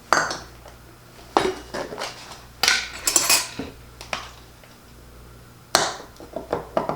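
Dishes and metal kitchen utensils clinking and clattering in a handful of separate knocks, with a busier burst about three seconds in, while someone rummages for a measuring cup.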